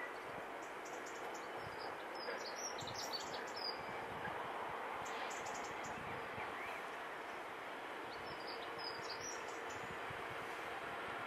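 Class 66 diesel-electric locomotive, an EMD two-stroke V12, approaching slowly with a container freight train, a steady low engine sound that grows a little towards the end. Small birds chirp in two short runs over it.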